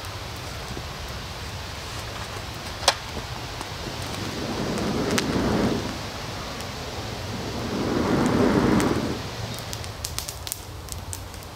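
A person blowing onto a small, newly lit fire of twigs and pine needles: two long breaths, each swelling and then fading. A single sharp crack comes about three seconds in, and small crackles of burning twigs come near the end.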